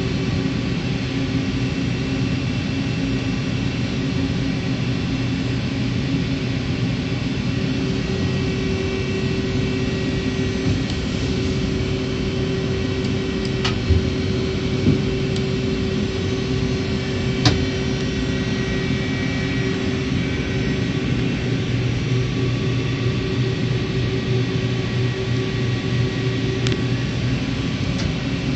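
CNC lathe running: a steady machine hum with a held tone that stops shortly before the end, and a couple of sharp ticks around the middle.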